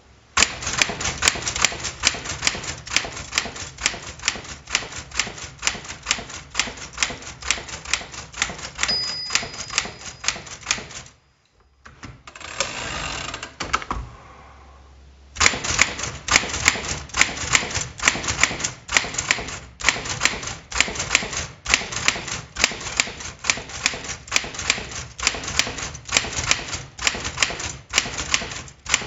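Smith Corona Sterling manual typewriter being typed on: rapid clacking keystrokes, several a second. About nine seconds in a short ring sounds, likely the margin bell; the typing stops, there is a few-second sliding, ratcheting noise of the carriage being returned, then fast typing resumes.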